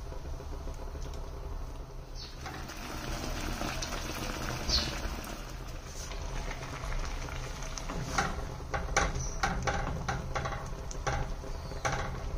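Water bubbling at a rolling boil in a stainless steel pot as kachnar flower buds are briefly blanched. Several sharp clicks and knocks come in the second half.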